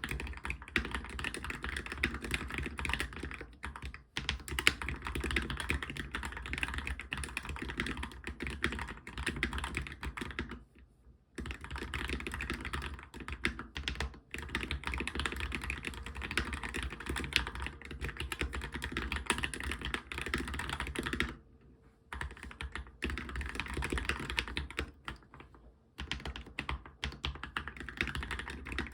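Continuous fast typing on a Monstargear MK308 mechanical keyboard with fully lubed optical switches: a dense run of key clacks, broken by three short pauses.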